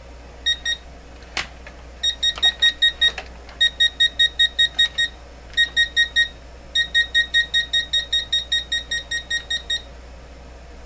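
Mustool MT92 multimeter beeping rapidly, about six or seven high beeps a second, in stop-and-start runs. This is its live-voltage alert for the outlet, picked up through the single red test lead. It sounds only while the hand on the meter gives it a capacitive path to ground. A single click comes about a second in.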